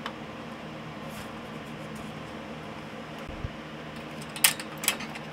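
Steady low mechanical hum, with two sharp clicks close together near the end from a gloved hand handling the clamp on an exhaust pipe slip joint.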